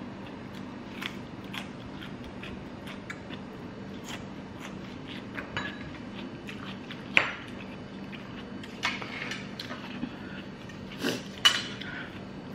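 Crunchy chewing of raw cucumber slices, with scattered clinks and knocks of ceramic bowls, plates and cutlery being moved on a dining table. There is one sharp clink about seven seconds in and two more near the end.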